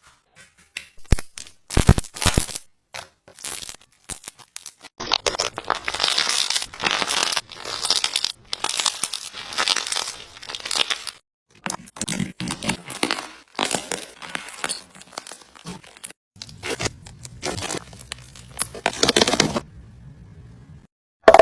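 Slime crackling and popping as it is squeezed and stretched: a few sharp pops in the first seconds, then long runs of dense crackling with short pauses between them.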